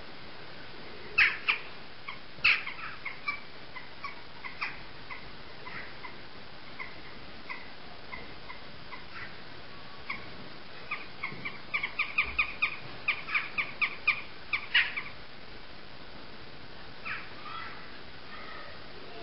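Jackdaws calling: short, sharp calls, a few loud ones about a second in, a quick run of calls in the middle, and a couple more near the end.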